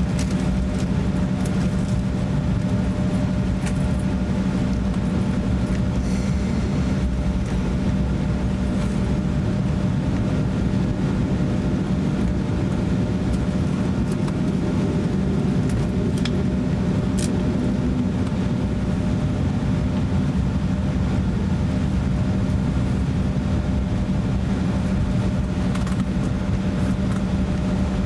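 Cabin noise inside an Embraer E170 jet airliner taxiing on the ground: a steady hum with a constant low drone from its GE CF34 turbofan engines at taxi power and the cabin ventilation, with a few faint ticks.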